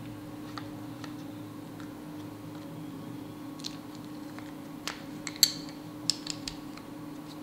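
Small plastic clicks and taps as a battery is fitted into a GoPro Hero 3+ and its battery door is handled and pressed shut, with a cluster of sharper clicks about five seconds in. A faint steady hum runs underneath.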